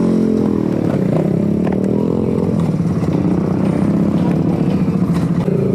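Kawasaki Z125's small single-cylinder engine running under way. Its pitch drops through the first second as the throttle comes off, then holds fairly steady with small rises and falls.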